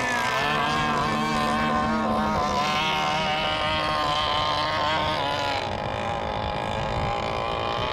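Several radio-controlled racing boats' small engines running together on the water, their high-pitched buzz wavering in pitch as the boats throttle and turn.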